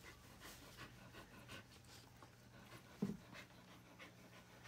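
An Australian Shepherd bitch panting faintly while whelping, with a brief louder sound about three seconds in.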